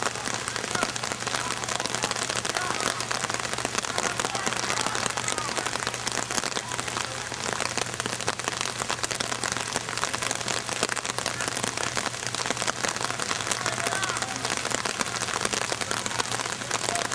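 Steady rain falling, a dense, even crackling patter of drops.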